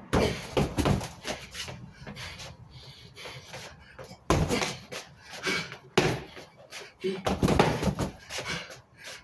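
Punches and kicks landing on a freestanding Everlast punching bag: a run of irregular thuds, about one or two a second, the hardest near the start and about four and six seconds in.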